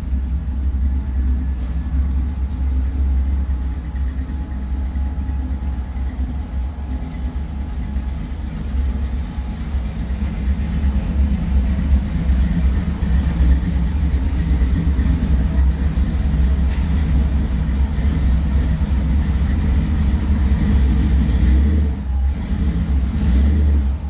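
1965 Chevy Nova's 350 small-block V8 idling steadily with a deep rumble, exhausting through headers that exit through the fenders.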